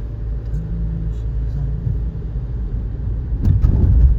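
Steady low rumble of a moving car heard from inside the cabin. About three and a half seconds in come a few sharp knocks, the loudest sounds here.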